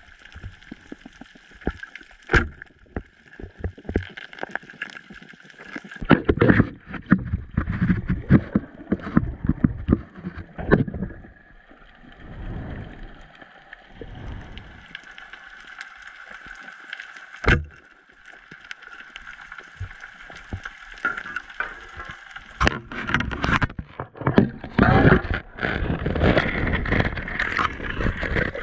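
Underwater sound through an action camera's housing: muffled water rushing and gurgling in uneven surges, with a few sharp clicks and knocks.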